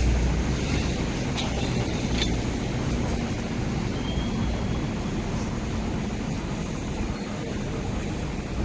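Hong Kong Light Rail Phase 1 light rail vehicle running away over curved track, its steady low rumble slowly fading. Two sharp clicks come about one and a half and two seconds in.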